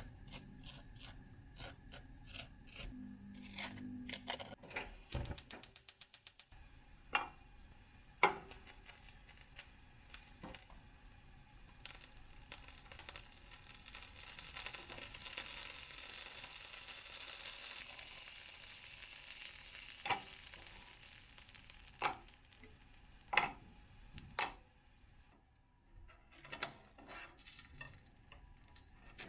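Food sizzling in a frying pan while it is stirred, with clinks and knocks of a utensil against the pan. The sizzle swells for several seconds in the middle.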